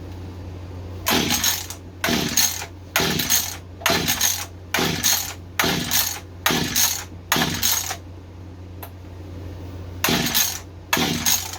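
Mantis mini tiller's recoil starter being pulled again and again, about one pull a second: the rope rasps out and the engine turns over without catching. There are about eight pulls, a pause, then two more near the end. The engine will not start.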